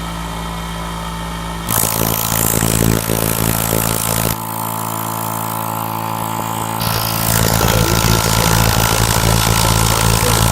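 Electric air compressor running steadily, its pump working but the tank not building pressure, which the owner puts down to a busted diaphragm. A rushing hiss comes in over the motor hum about two seconds in, fades out around four seconds and returns near seven seconds.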